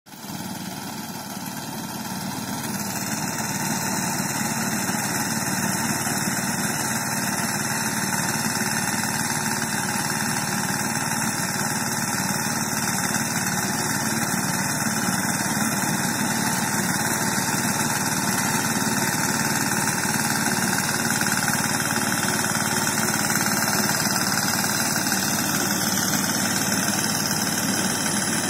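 Engine of a BCS walk-behind reaper running steadily while it cuts soybeans, growing louder over the first few seconds and then holding even.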